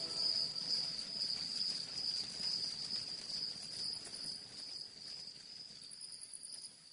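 Background music fading out after its final chord: a decaying wash of sound dying away, with a thin steady high-pitched tone running under it.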